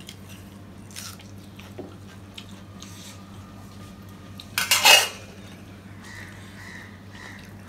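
Stainless steel plates and bowls clinking as they are handled: a faint clink about a second in and a short, loud clatter about five seconds in, over a low steady hum.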